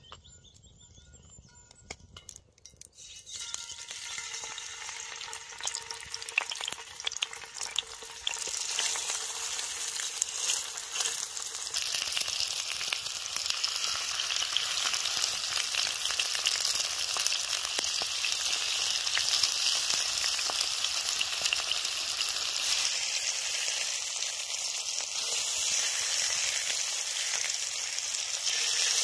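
Pieces of white fish and salmon frying in hot oil in a cast-iron skillet over a campfire. The sizzling starts about three seconds in and gets louder in steps as more pieces go into the pan, then holds steady and loud.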